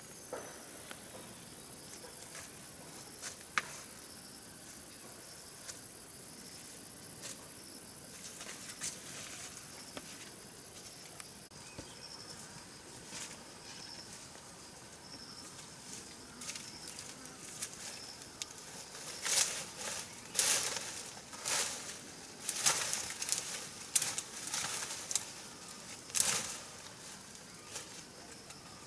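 Steady high-pitched buzzing of insects, with scattered faint clicks. From about two-thirds of the way in, a run of short, sharp rustles and snaps comes over it for several seconds.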